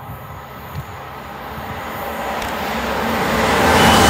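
Great Western Railway Intercity Express Train running through a station, its rumble growing steadily louder as it comes on.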